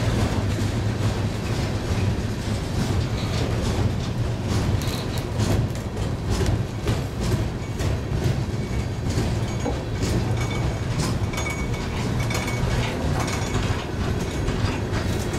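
Freight cars (lumber-laden centerbeam flatcars and boxcars) rolling past close by: a steady rumble of steel wheels on rail, with irregular clicks and clacks as the wheels cross rail joints.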